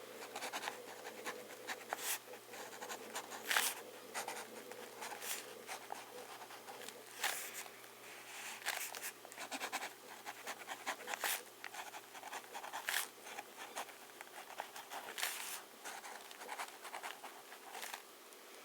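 Battle sound-effect ambience: irregular sharp cracks and crackles at uneven spacing, over a faint steady hiss and hum.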